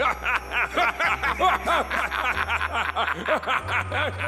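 Cartoon man laughing to himself in a long run of short, quick laughs, gloating over the plan just hatched, with background music holding low notes underneath.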